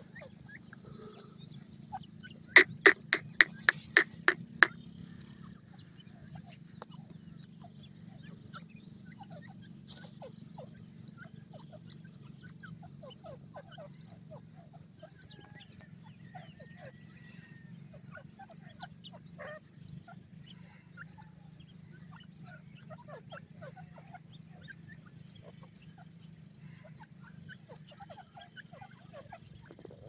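A steady high insect trill over a low background rumble. About two and a half seconds in, a francolin gives a quick run of about seven sharp, loud notes. Faint scattered chirps and ticks follow.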